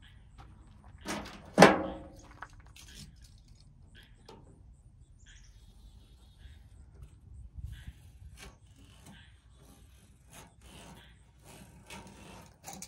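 Window screen mesh and frame handled on a pickup's tailgate: a loud clunk about a second and a half in, then scattered light clicks, taps and rubbing as the screen is laid out and its spline pressed in.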